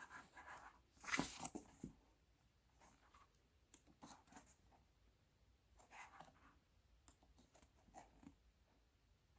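Faint paper handling as a diary's pages are turned: a louder rustle about a second in, then scattered soft page ticks and rustles.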